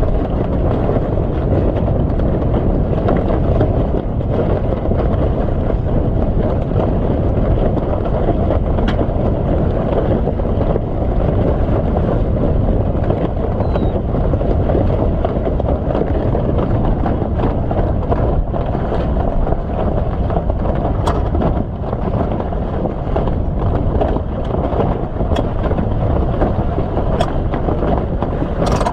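Wind buffeting the microphone on a sailing yacht under way, a loud steady rush. A few sharp clicks in the second half come from the mast winch being worked as the reef is shaken out.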